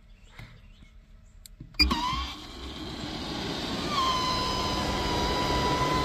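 Near quiet with a few soft ticks, then about two seconds in a sudden loud start of an engine-like drone: a rumble under a steady high whine, which drops slightly in pitch and settles about four seconds in.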